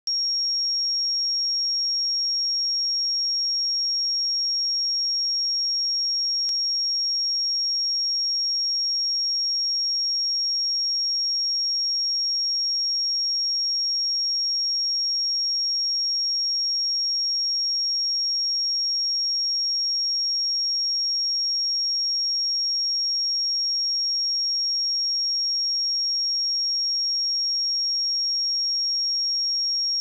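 A 5575 Hz sine-wave test tone: a single high-pitched pure tone held steady at a constant level.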